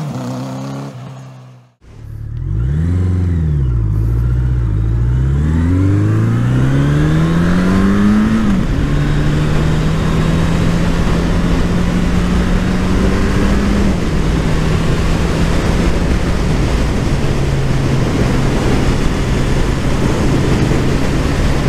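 A Honda CB1100's air/oil-cooled 1140 cc inline-four. It fades briefly, then is revved up and down a few times, and the revs climb steadily under acceleration. It then runs at steady revs with wind rushing past, dropping in pitch twice, about halfway through and again a little later.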